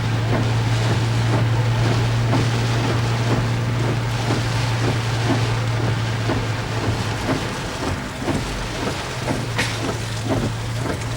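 A steady low engine drone under a constant noise of wind on the microphone, with light ticks and knocks scattered through.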